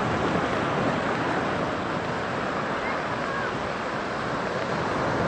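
Sea surf washing onto a beach: a steady, continuous rush of breaking waves.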